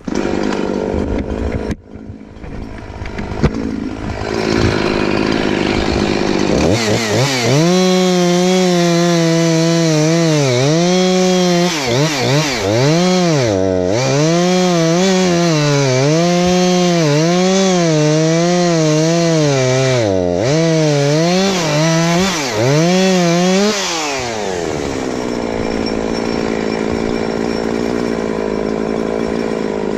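Two-stroke chainsaw revving up and cutting into a birch stump, its engine note dipping and recovering again and again as the chain bites under load. Near the end it drops back to a lower, steady running note.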